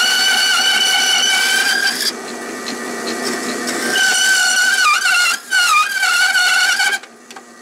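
Delta bandsaw with a DC-motor low-speed drive and a new metal-cutting blade, cutting into a wooden block. It gives a high-pitched whine while the blade is in the wood, eases for about two seconds in the middle, and dips in pitch a couple of times as the feed loads the blade. It runs on more quietly near the end.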